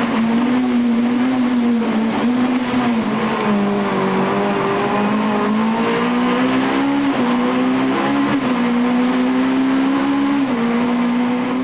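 Renault Clio Maxi Kit Car's four-cylinder rally engine running hard at high revs, heard from inside the cabin. Its pitch dips and climbs again several times as the car shifts gear and lifts through the bends.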